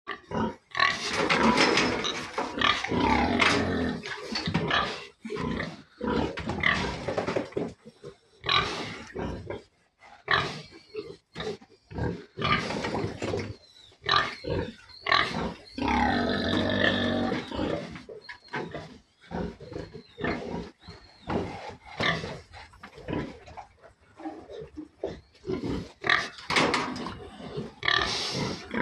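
Domestic pigs, a sow with her piglets, calling in many short, irregular bursts, with one longer call that rises and falls in pitch about sixteen seconds in.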